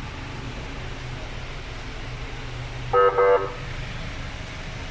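Two short, loud toots of a vehicle horn about three seconds in, over a steady low machine hum.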